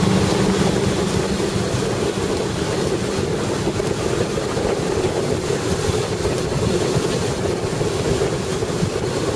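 2001 Super Air Nautique wakeboard boat's inboard engine exhaust running steadily at towing speed, mixed with the rush of the wake and wind on the microphone.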